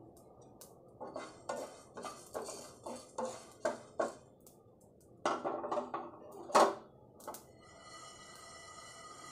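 Wooden spatula stirring coriander seeds around a nonstick frying pan as they roast lightly: a quick series of scraping strokes with the seeds rattling, a short pause, then a few more strokes, the loudest about two-thirds of the way in. Music comes in near the end.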